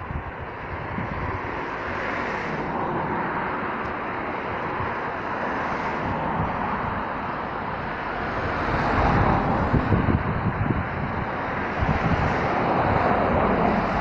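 Steady noise of road traffic, swelling several times as vehicles pass by, with wind gusting on the microphone.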